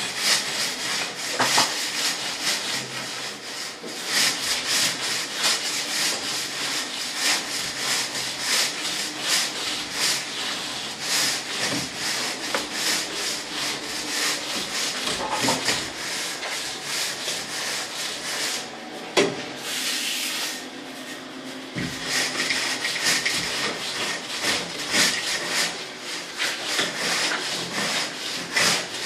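Straightedge scraping over fresh cement render on a wall in rapid repeated strokes, screeding the mortar flat against the vertical guide. One sharp knock comes about two-thirds of the way through.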